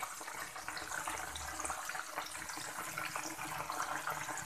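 Flour-coated chicken pieces frying in hot oil in a pan: a steady sizzle with many fine crackles.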